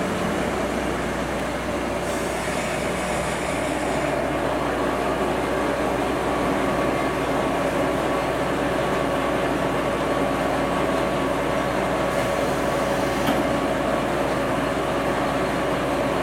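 KTR 800 series diesel railcar standing at the platform with its engine idling, a steady hum. A brief hiss comes about two seconds in.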